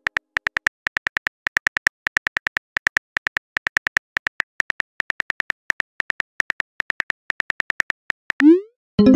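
Phone keyboard click sound effect, typing a text message letter by letter in quick runs of clicks, about five or six a second. Near the end a short rising whoosh as the message is sent, and a chord of tones starts just at the close.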